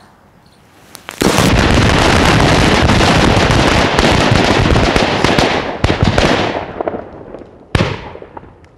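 A bundle of red paper firecrackers going off together: a few small pops, then about a second in a loud, dense crackle of many bangs at once for about five seconds, thinning out, with one more bang near the end.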